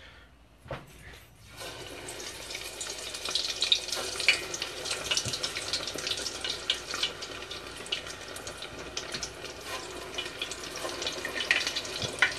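Coconut-coated shrimp going into hot deep-frying oil in a pot: a brief knock, then from about a second and a half in a steady sizzling and crackling with scattered sharp pops.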